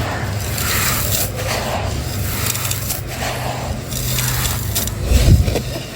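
Dry, brittle crumbling shapes being crushed by hand: continuous gritty crunching and crackling with some scraping, and a louder low thump a little after five seconds in.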